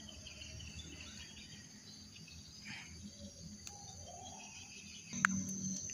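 Faint outdoor ambience: a steady high insect drone with a few faint bird chirps, and a sharp click about five seconds in.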